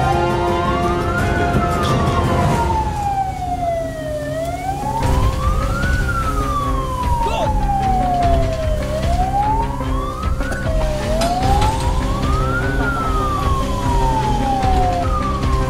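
An emergency siren wailing, its pitch sweeping up and down again and again. Each cycle rises quickly and falls more slowly, about every four to five seconds, over a steady low hum. In a fire drill, a siren like this signals the alarm.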